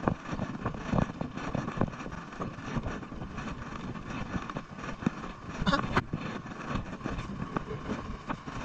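Footsteps and handling knocks from a camera carried at a walk: irregular thumps over a steady outdoor rumble.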